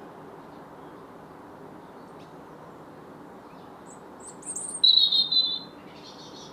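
A songbird, which she takes for a European robin, singing one loud, high, warbling phrase about four and a half seconds in, after a few faint high notes. Steady low background noise runs underneath.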